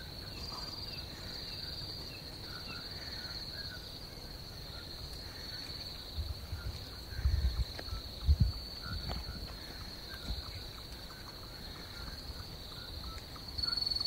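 A steady, high-pitched insect chorus at dusk, with short faint chirps repeating throughout. A few low rumbles come in the middle.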